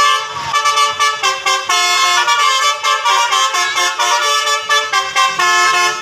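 Basuri telolet multi-tone bus horn playing a quick melody of short stepped notes, several pitches sounding together.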